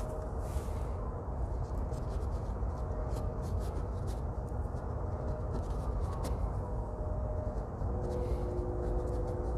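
Paintbrush strokes scratching and dabbing on a stretched canvas in short, scattered strokes, over a steady low background rumble.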